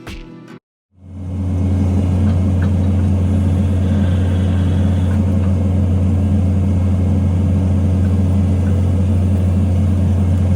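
Engine of a post-hole auger running at a steady speed with a strong low hum. It comes in after a brief silence about a second in.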